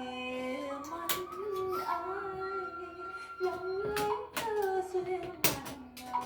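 A song with a held, gliding sung melody playing on a television, with several sharp clicks and knocks over it.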